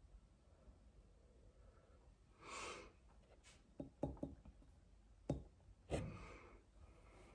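A soft breath out about two and a half seconds in. From about four seconds, a few sharp knocks and clicks of a hand handling the camera, the loudest two near the end, then another soft breath.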